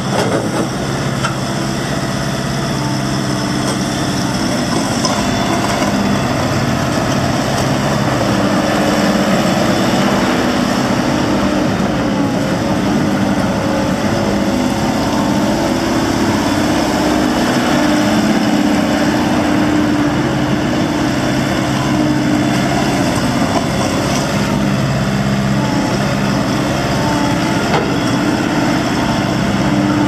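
Volvo MCT125C compact track loader's diesel engine running as the machine drives and turns on its rubber tracks, the engine note rising and falling a little as it moves.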